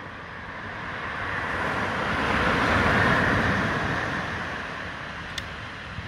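A wave breaking and washing up a sandy beach: a rush of surf that swells for about three seconds, then fades, with a faint click near the end.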